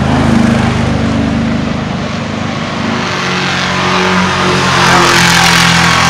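Historic racing car engines at speed on the circuit: a vintage racing car's engine going by, then the sound swelling as the next car comes on about five seconds in.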